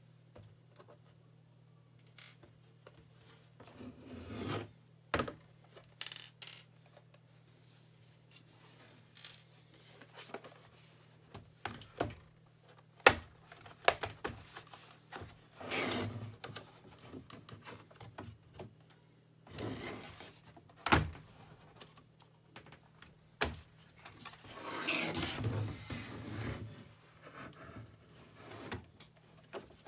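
Hands working on a Logitech ERGO K860 keyboard's wrist rest to remove it: scattered sharp plastic clicks and knocks with several rubbing and scraping passes, the longest a couple of seconds long near the end, over a faint steady hum.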